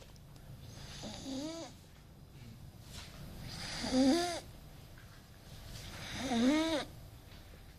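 A person snoring: three snores about two and a half seconds apart, each a breathy rasp that ends in a wavering, pitched tone, the later two louder.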